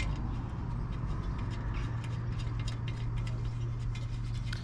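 Faint light clicks and small metal taps as the clutch bolts are threaded in loosely by hand, over a steady low hum.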